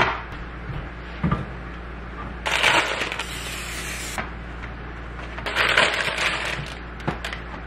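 Cooking-oil spray hissing onto a nonstick baking sheet for about a second and a half, then a plastic flatbread package crinkling as the flatbreads are pulled out. A soft knock comes a little after the start.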